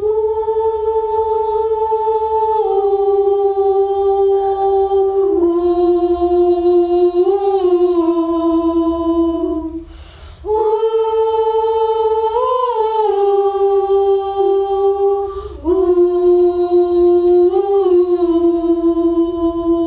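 A wordless voice sings a slow melody of long held notes that step downward, in two similar phrases with a short break about ten seconds in.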